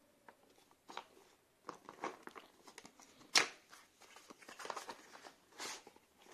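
A paperboard retail box being opened by hand: scattered rustles and scrapes of the cardboard flaps, with one louder crackle a little past the middle, and a plastic case sliding against the cardboard near the end.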